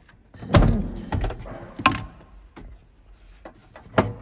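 Metal clunks and knocks from handling a car's hybrid battery pack and its steel casing: one heavy thud about half a second in, then a few sharper knocks, one near two seconds and one near the end.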